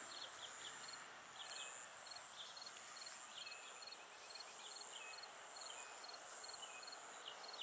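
Faint insect chorus: a short high chirp repeating about twice a second over a higher buzz that swells and fades, with a few scattered short chirps and a background hiss.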